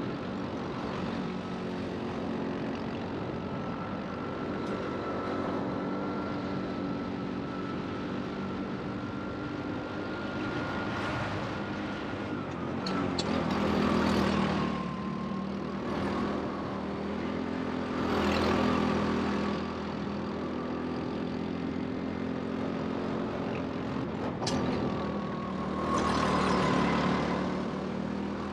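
Rental go-kart running on the track during a race: a steady motor note whose pitch drifts up and down with speed, and three louder rushes of noise, about halfway through, a few seconds later, and near the end.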